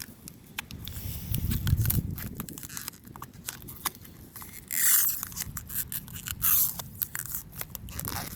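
Hands handling plastic door handle cover trim: scattered clicks and scrapes, with two short rasping noises about five seconds in and again near six and a half seconds.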